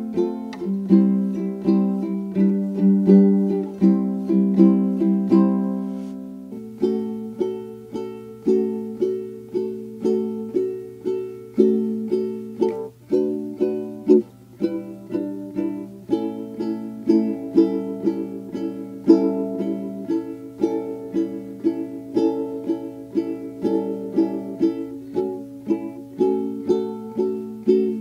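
Background music: a light instrumental of plucked strings, a steady run of short struck notes, with a change of chords about six and a half seconds in.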